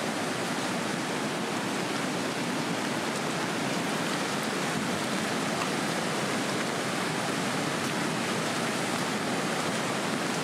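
Rushing of a river in full flood, a muddy torrent pouring past in a steady, unbroken wash of water noise.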